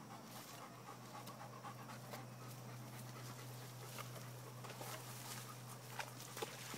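Bernese mountain dog panting, faint.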